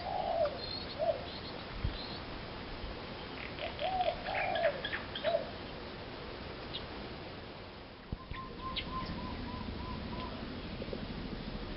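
Wild birds calling: a few short, low notes that rise and fall, sharp high chips, and a little after the middle a quick run of about eight short, even notes.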